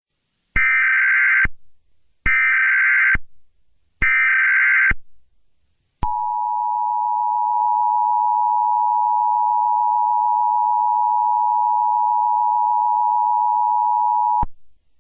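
Emergency Alert System tones: three short, harsh, buzzing data bursts of just under a second each, then about six seconds in the steady two-tone attention signal, held for about eight seconds. This is the header and alert tone that open an emergency broadcast, here leading into the all-clear.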